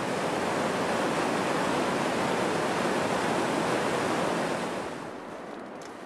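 Fast-flowing river water rushing, a steady wash of noise that builds a little early on and fades away over the last second or so.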